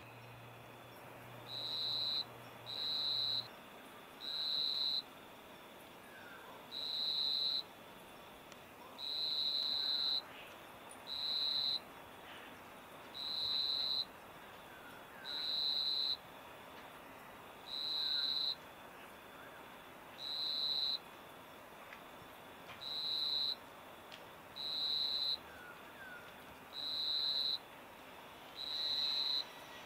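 A cricket trilling in bursts of about half a second to a second on one steady high pitch, repeating every one to two seconds.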